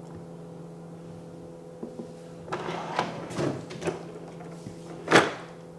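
A kitchen drawer being opened and its contents clattering as someone rummages through it, a cluster of knocks about halfway through and one sharp knock near the end, over a faint steady hum.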